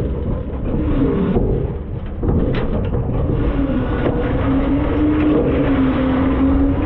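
Front-load garbage truck running: a loud engine drone with a wavering whine, and a few knocks and rattles from the hopper.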